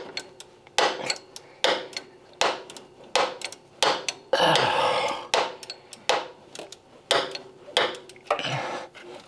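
3/8-inch flex-head ratchet being worked on a bolt: repeated sharp metallic clicks a little under a second apart as it is swung back and forth, with a longer ratcheting rasp about halfway through and again near the end.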